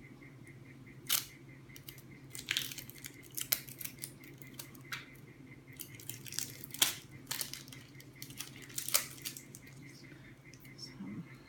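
Scissors snipping and packaging being handled: an irregular series of short, sharp snips and crinkles over a low steady hum.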